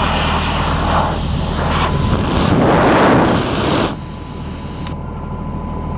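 Airman PWP60S engine-driven air plasma welder-generator running with a steady low hum, overlaid by a loud rushing hiss that cuts off suddenly about four seconds in. A thin steady whine runs on from about halfway.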